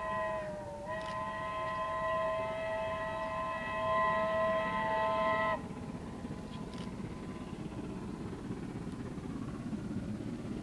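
Steam locomotive whistle sounding one long, steady blast of several tones at once, dipping briefly in pitch just after the start and cutting off sharply about five and a half seconds in. After it, the low, steady rumble of the train running.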